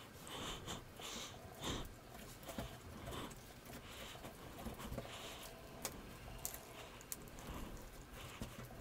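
Hands kneading and pulling apart crunchy slime full of small beads mixed with bouncy slime: faint, irregular squishing with scattered small clicks and crackles.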